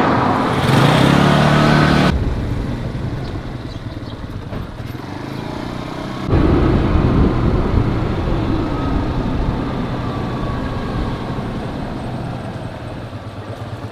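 Motorcycle engine running as it is ridden, over a steady low rumble. The sound jumps abruptly about two seconds in and again about six seconds in.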